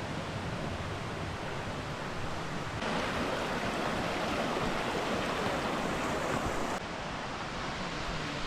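Waterfall's steady rushing water, louder from about three seconds in and dropping back near seven seconds.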